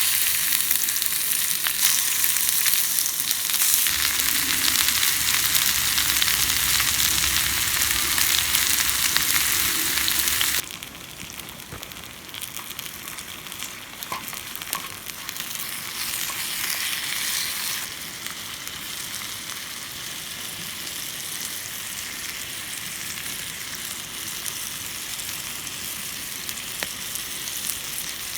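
Potatoes frying in a hot skillet, a steady sizzle. It is loud for about the first ten seconds, then drops sharply to a quieter sizzle.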